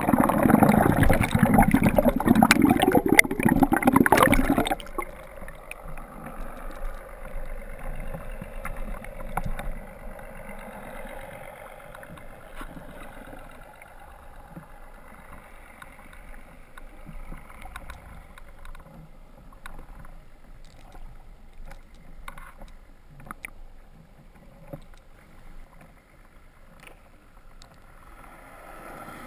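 Underwater rush of bubbles and churning water against the camera for about the first five seconds, cutting off suddenly. Then a faint, steady underwater hiss with scattered small clicks.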